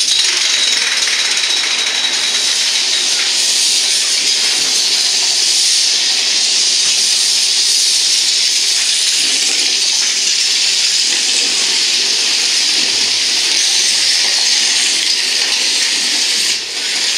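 A steady, loud rushing hiss that holds level, dipping briefly near the end.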